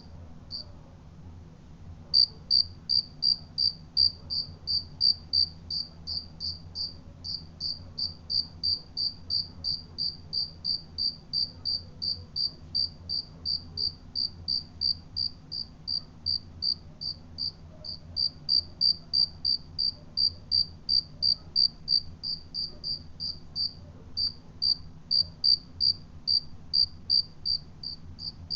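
A cricket chirping in a steady, even rhythm of high-pitched chirps, about three a second. It pauses for over a second near the start, then carries on with only brief breaks.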